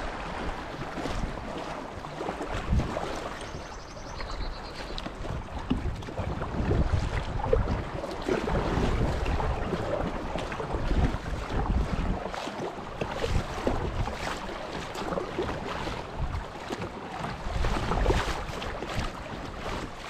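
Shallow river water rippling and splashing over rocks around a moving kayak, with wind rumbling on the microphone.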